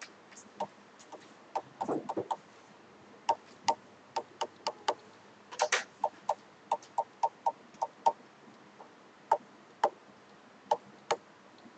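Stylus pen tapping and clicking against the glass of an interactive smart board while lines, numbers and units are written: a string of sharp, irregular clicks, quickening to about three a second in the middle, with a short scrape of the tip twice.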